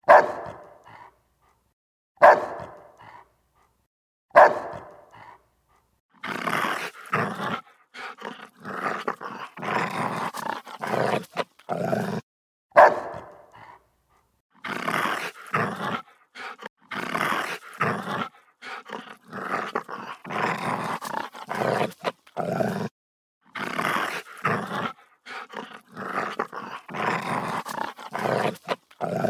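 Doberman barking aggressively: a few single loud barks about two seconds apart, then long runs of rapid, rough barking mixed with growling.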